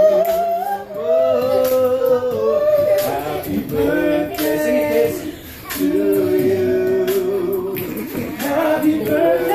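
Men singing a serenade unaccompanied, in long held notes, with a short pause a little past halfway.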